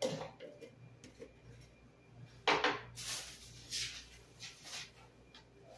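A few knocks and clatters of kitchen containers being handled and set down on a tiled counter, the loudest about two and a half seconds in, followed by a short hiss.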